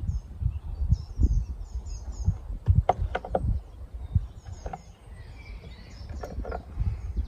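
Wind buffeting the microphone in a low rumble, with a small bird chirping in short repeated phrases and irregular knocks of steps on the trail, several in quick succession about three seconds in.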